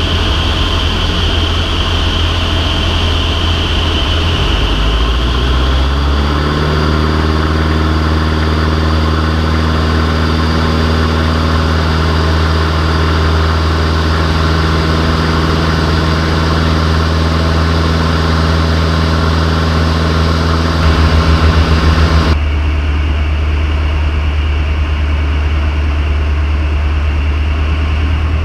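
Van's RV-6A light aircraft's piston engine and propeller heard from inside the cockpit, running steadily through the landing and rollout. A few seconds in, the engine note steps down to a lower, even idle. About twenty-two seconds in, the higher hiss drops away suddenly, leaving the low engine hum.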